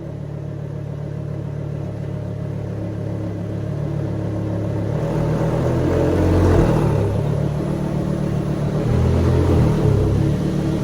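Lamborghini Gallardo LP's V10 engine running through its exhaust, growing louder about halfway through with two swells in the note.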